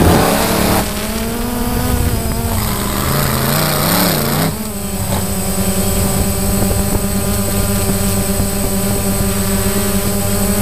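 Steady multi-tone hum of a camera drone's spinning propellers, picked up by its own onboard microphone. The pitch wavers for the first few seconds, then holds steady from about halfway in.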